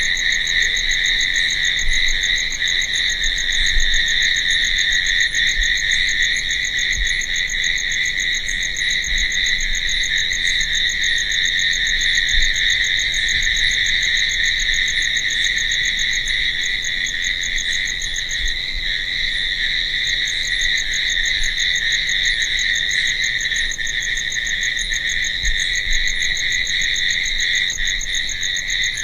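Crickets chirping in a dense, unbroken night chorus: a steady shrill trill with a finer, higher pulsing over it.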